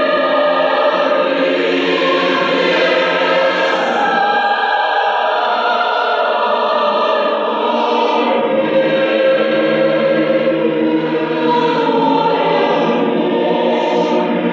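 A choir singing many-voiced chords that flow on without a break.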